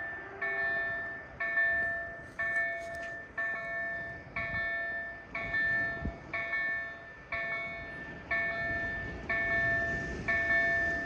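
KLD-4103 level-crossing warning bell striking about once a second, each stroke ringing with several tones and dying away before the next; the bell rings to warn that a train is due at the crossing. A low rumble runs beneath it, strongest near the end.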